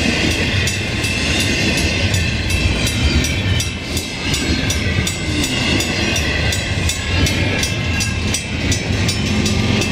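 Double-stack container cars of a Canadian Pacific freight train rolling past over a level crossing, a steady rumble with repeated sharp wheel clicks over the rail joints. Near the end the low hum of an approaching diesel locomotive, a mid-train distributed power unit, starts to come in.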